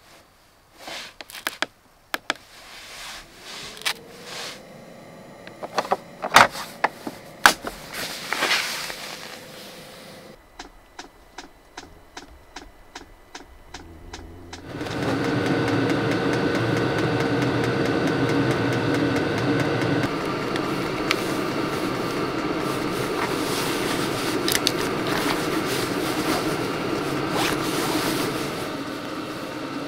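Scattered clicks and knocks, then about halfway a steady machine-like hum starts suddenly and keeps running.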